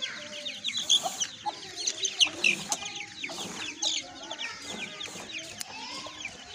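Chickens clucking, mixed with many quick, high chirps.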